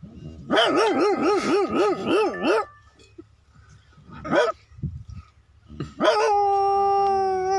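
A man imitating a big dog with his voice. He gives a quavering howl, then a short yelp about four seconds in, then a long held howl starting about six seconds in.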